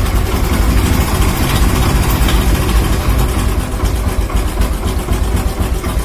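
Small four-stroke motorcycle engine idling steadily in neutral. There is no ticking from the magneto flywheel rubbing its iron stator post: that rub has been cured.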